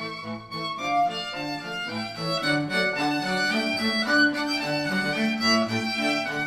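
Instrumental music with a bowed-string lead over lower string notes and a moving melody. It is played back through headphones and picked up by microphones at the ear cups.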